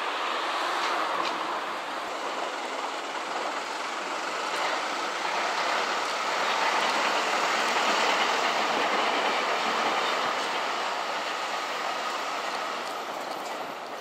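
JNR KiHa 47 diesel railcar running, heard from aboard: steady rumble of wheels on the rails with a few faint clicks. It grows somewhat louder in the middle and eases off near the end.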